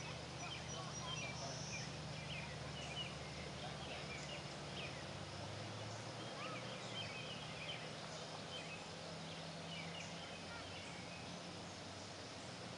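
Scattered short bird chirps and calls, many overlapping, over a steady low hum.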